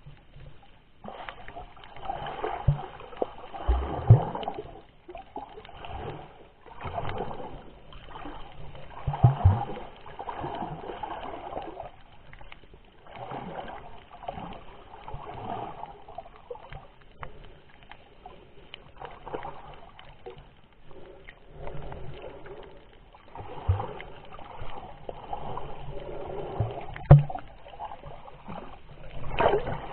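Muffled water sloshing and gurgling around an underwater camera, rising and falling every few seconds, with a few sharp knocks.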